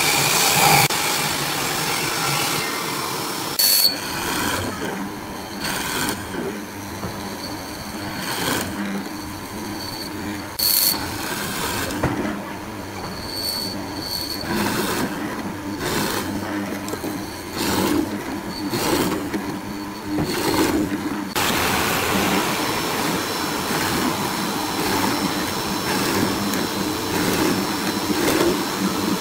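Hollow-chisel mortising machine cutting a mortise in a wooden rail, its chisel and auger plunging repeatedly into the wood about every second or two, with a few short high squeaks.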